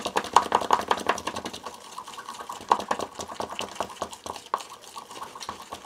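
Wooden stir stick scraping and clicking around the inside of a plastic cup while mixing thinned epoxy, a quick, steady run of several small clicks a second.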